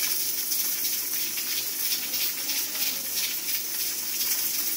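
Pressure cooker hissing steadily as steam escapes past its weight valve, a high, even hiss with a faint sputter: the cooker is up to pressure.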